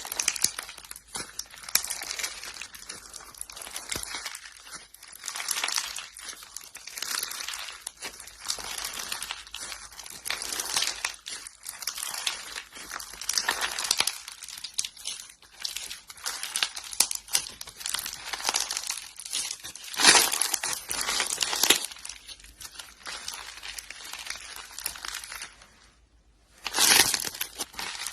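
Crisp crackling and crunching of a crunchy ASMR material being worked by hand, in uneven bursts, loudest about two-thirds of the way through, with a brief pause and a final sharp burst near the end.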